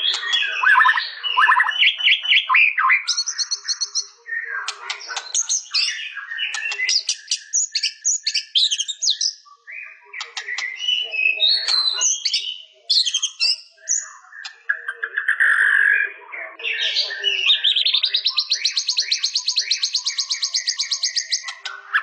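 White-rumped shama singing a varied, fast song of whistled phrases and chattering notes, ending in a long, fast trill of repeated notes over the last four seconds or so.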